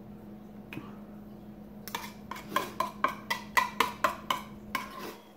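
Metal fork clinking and scraping inside a tuna can, a quick run of sharp ringing clicks about four a second, starting about two seconds in.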